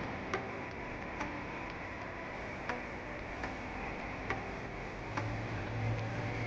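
Sharp, slightly irregular ticks about once a second over a steady background hiss, with a low hum coming in near the end.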